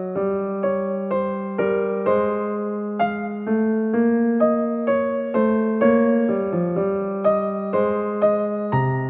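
Background music: a solo piano or electric piano playing a gentle melody, notes struck about twice a second and fading between strikes.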